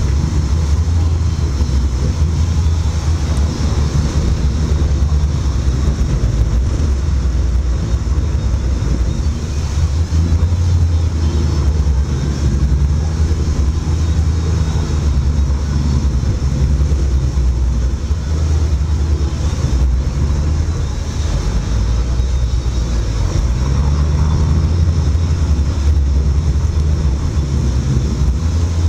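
Sportfishing boat's engine running steadily under way, a loud, even low drone, with water churning at the stern.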